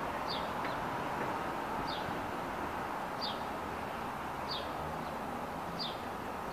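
A bird repeating a short, high, falling chirp five times, about every second and a half, over a steady background noise.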